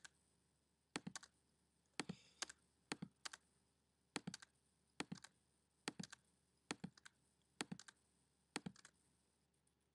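Faint clicks of a computer keyboard and mouse, coming in quick pairs about once a second, as spreadsheet cells are selected and their error values cleared.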